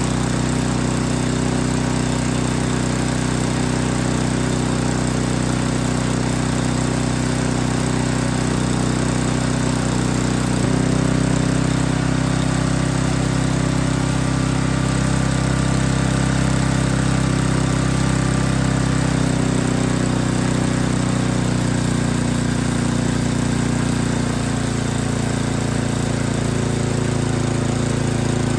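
Snowblower's small four-stroke engine running continuously while its carburetor mixture screws are adjusted. Its speed steps up about a third of the way in and shifts twice more later as the fuel mixture is changed.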